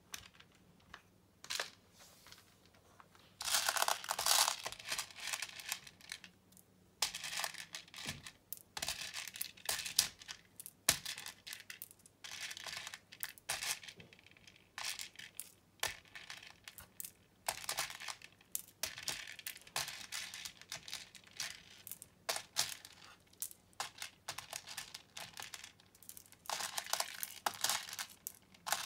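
Small plastic pony beads clattering and rattling as hands rake and scoop them from a loose pile on a plastic organizer lid and drop them into its compartments. The sound comes in bursts of a few seconds, with single clicks of a few beads between.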